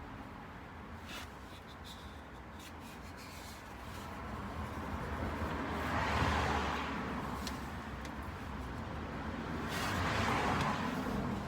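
Two vehicles passing in turn, each a rising and fading rush of tyre and engine noise, the first peaking about halfway through and the second near the end, with a few faint clicks of handling in between.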